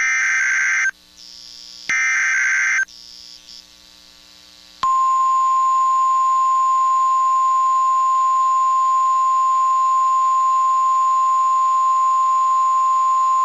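Two short buzzy data bursts of a NOAA Weather Radio SAME alert header, each about a second long with a second's gap between them. About five seconds in, the steady 1050 Hz weather radio warning alarm tone starts and holds without a break: the signal that switches on alert-equipped weather radios for the weekly alarm test.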